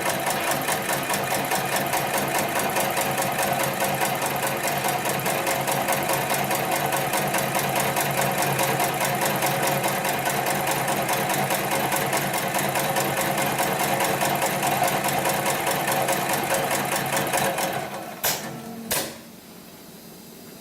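Extra heavy duty automatic pattern sewing machine stitching rope at speed, a loud, fast and steady needle rhythm. It stops near the end, followed by two sharp clicks about a second apart.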